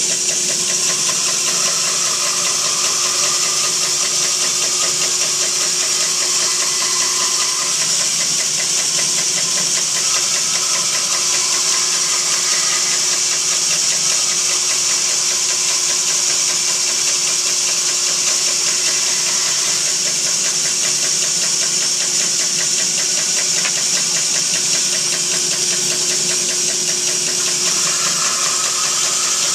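Band saw with a freshly silver-soldered blade running and cutting through a maple slab: a steady hum and the hiss of the blade in the wood, with a fast, even ticking.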